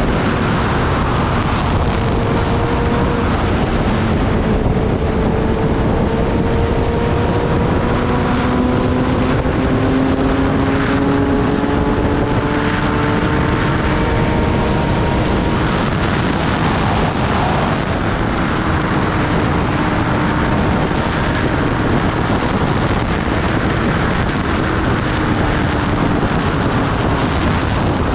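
Kawasaki Ninja ZX-10R's inline-four engine running on the move under heavy wind rush on the microphone. Its pitch climbs slowly over the first half, then holds steady.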